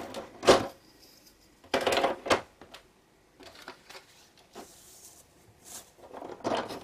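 Cardstock strip being handled and pushed into place on a plastic scoring board: a few short rustles and knocks of paper and plastic, about half a second in and again around two seconds in, with quieter small handling sounds between.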